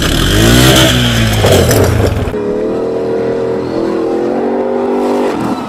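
A truck engine revving hard at a steady high pitch, stepping up a little partway, as the lifted truck leaves a dirt jump. Before it, for about the first two seconds, there is a different loud sound whose pitch rises and falls, and it cuts off suddenly.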